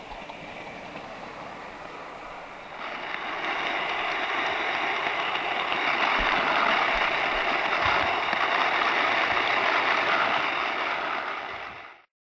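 Hornby model train running on its track, the small electric motor whirring and the wheels rattling over the rails. It grows louder about three seconds in as the train nears, then cuts off suddenly near the end.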